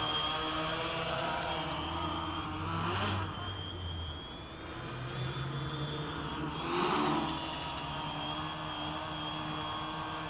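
Quadcopter's electric motors and propellers whirring as it hovers, the tones sliding up and down in pitch with the throttle over a steady high whine. Two brief louder rushes come about three and seven seconds in.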